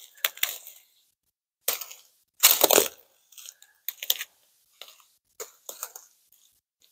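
Footsteps crunching and rustling through dry leaf litter and undergrowth on a forest floor: a string of irregular short crunches.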